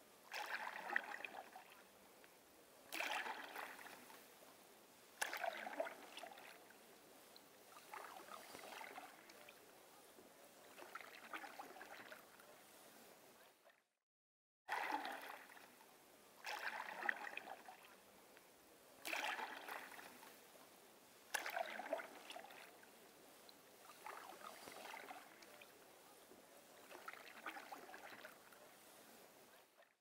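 Single-bladed canoe paddle strokes in calm lake water: a splash and swirl about every two seconds, each stroke starting sharply and trailing off. The sound cuts out for under a second about halfway, then the strokes resume.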